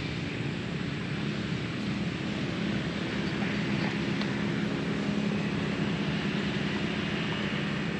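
A steady engine hum with a hiss over it, slowly swelling and then easing a little.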